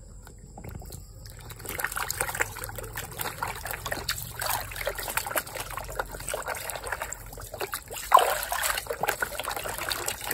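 Water splashing and sloshing in a tub as a hand swishes a muddy plastic toy ambulance back and forth through it. It starts faint, builds after about a second, and grows to louder splashes about eight seconds in.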